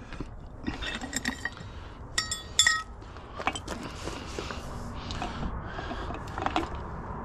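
Metal clinking and light knocking from hand work taking an old trailer jack off a trailer tongue, with two sharp, ringing metal clinks a little over two seconds in.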